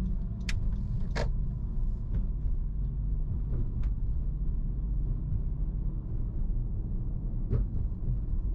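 Steady low rumble of road and engine noise inside a moving car, with a few brief faint clicks.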